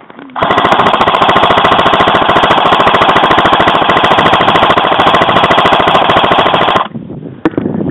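Airsoft rifle firing one long full-auto burst, a rapid, even stream of shots close to the microphone lasting about six seconds and cutting off sharply near the end, followed by a single click.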